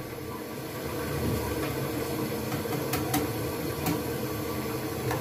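Wire whisk stirring strained yogurt (chaka) in a glass bowl, with a few light clicks of metal against glass about three and four seconds in, over a steady low background hum.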